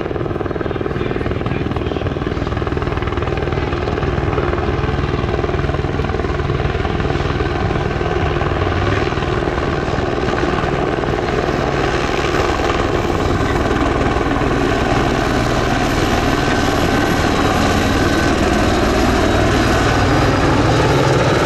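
Airbus (Eurocopter) AS355 twin-turbine helicopter coming in to land: steady rotor beat with a thin turbine whine above it, growing gradually louder as it descends and passes close by.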